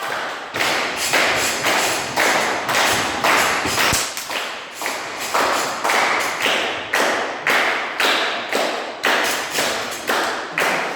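Audience clapping in unison in a steady rhythm, about two claps a second, echoing in a hall.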